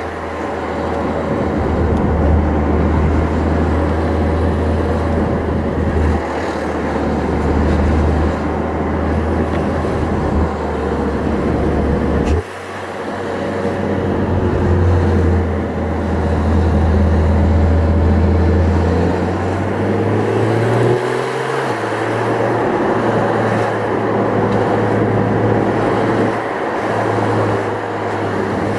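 Porsche 991 GT3 RS's naturally aspirated 4.0-litre flat-six heard from inside the cabin, running steadily under way with road noise. The sound drops suddenly for a moment about twelve seconds in, and the engine note rises in pitch around twenty seconds in.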